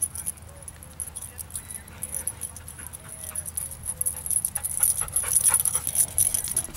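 A yellow Labrador retriever and a dog-park scene: a few faint short whines early on, then rapid clicks and rustling that grow louder over the last two seconds as the dog comes right up to the microphone.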